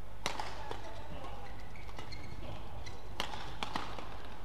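Badminton rally: sharp cracks of rackets striking the shuttlecock, one just after the start and another about three seconds later, with fainter hits between.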